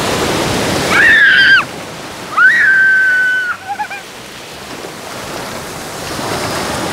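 Ocean surf washing in over the shallows, with a child's two loud high-pitched squeals, a short one about a second in and a longer held one just after.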